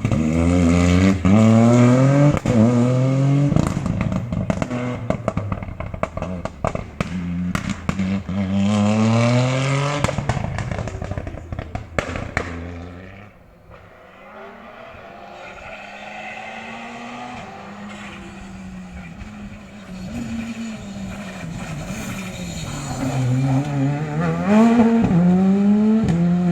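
Rally car engine accelerating hard, pitch climbing and dropping back with each gear change, with sharp crackling pops from the exhaust; it fades away a little after halfway. A rally car engine is then heard revving up and down at a distance, growing loud again near the end.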